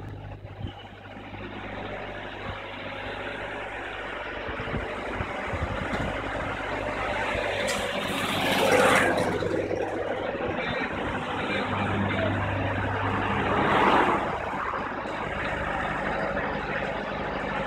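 A heavy engine running steadily as a low hum, with two louder rushes of noise about eight and fourteen seconds in.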